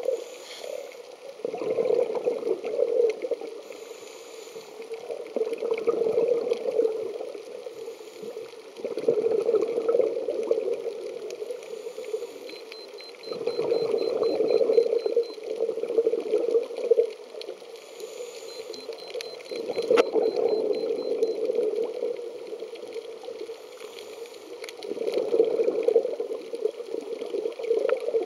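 A scuba diver breathing out through the regulator underwater, exhaled bubbles gurgling in bursts of two to three seconds about every four to five seconds, with quieter gaps between.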